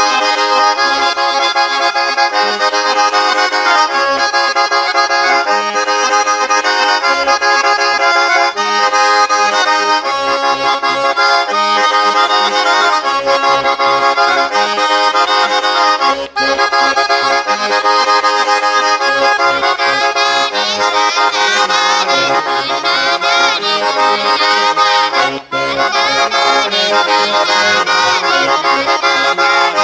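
Organetto, a small Italian diatonic button accordion, playing a tarantella: a melody over rhythmic bass notes, with two very brief breaks about 16 and 25 seconds in.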